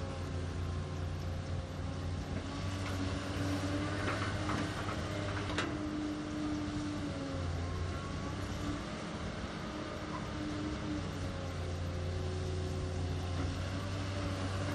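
Cat 320 hydraulic excavator digging soil, its diesel engine running steadily and its pitch wavering as the hydraulics take load. A few sharp knocks from the bucket come about a third of the way in. Near the end, soil pours from the bucket into the dump truck's bed.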